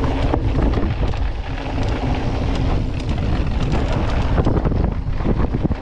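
Wind buffeting a GoPro's microphone during a fast mountain-bike descent, with the bike rattling and knocking over a rough trail.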